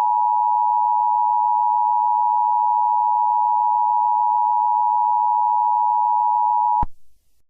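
Emergency Alert System attention signal: a steady two-tone electronic beep, two sine tones of about 853 and 960 Hz sounding together, held unbroken and then cutting off abruptly near the end.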